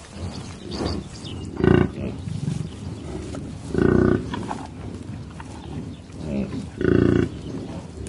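A bison giving three short grunts, spaced a few seconds apart.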